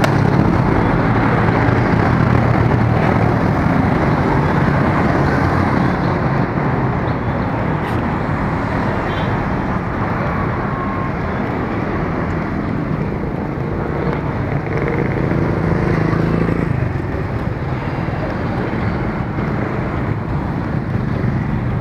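Road traffic with motorcycle engines running close by, a steady din with a low engine hum that eases off about sixteen seconds in.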